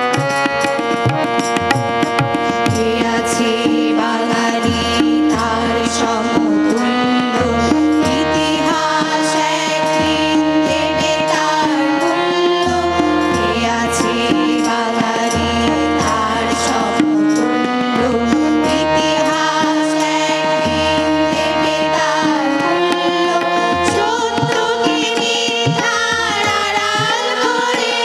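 A children's choir singing a Bengali song, accompanied by a harmonium's sustained chords and tabla drumming.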